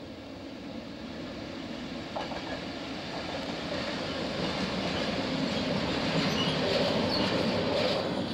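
EWS Class 66 diesel locomotive and its train of covered steel-coil wagons passing close by: a rumble of wheels on rail with a few clanks, growing louder toward the end.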